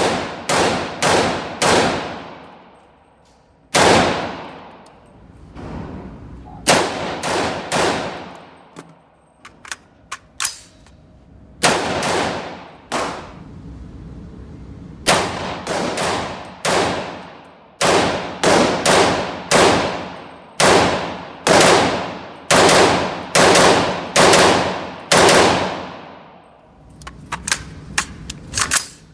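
Semi-automatic gunshots fired in quick strings of three to five, about two to three shots a second, with pauses between strings; each shot trails off with a ringing echo. A few faint pops come near the end.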